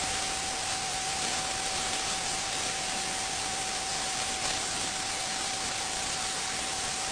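Abrasive sandblaster nozzle blasting continuously, a steady, even hiss with a faint constant tone running through it.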